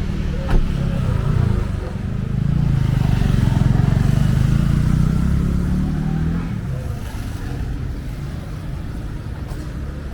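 A motor vehicle's engine running, a low rumble that swells for a few seconds in the middle and then eases off. There is a short click about half a second in.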